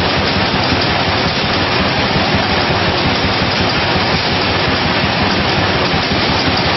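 A 24,000-bottle-per-hour combiblock bottling machine running at speed, its rotary filling turret carrying bottles round. It makes a loud, steady, even rush of machine noise that does not change.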